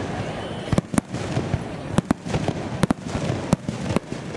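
Fireworks shells bursting in a starmine barrage: about nine sharp bangs at uneven intervals, some in quick pairs.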